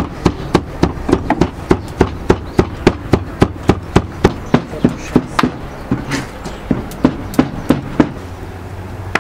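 Large kitchen knife chopping diced onion and peppers fine on a wooden board: a steady run of sharp knocks of the blade on the board, about three a second, stopping near the end.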